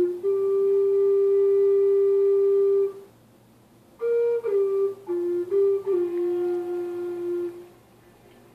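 Native American-style wooden flute playing a slow melody: one long held note, a pause of about a second, then a phrase of several short notes stepping up and down that settles on a longer held note.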